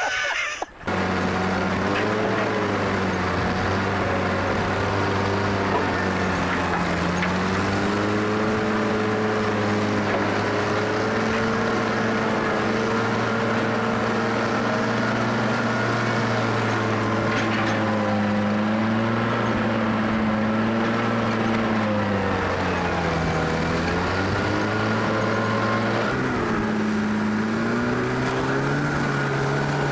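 Log skidder's diesel engine running under load, its pitch rising and dipping with the throttle, with a marked dip a little past the middle.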